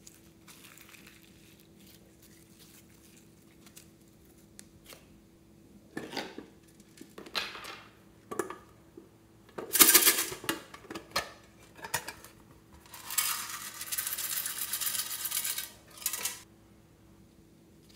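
Hard toy containers clicking and clacking as they are handled and opened, with a loud clatter about ten seconds in. Then comes a steady rattling patter for about three seconds as small plastic flakes are poured onto slime in a glass dish.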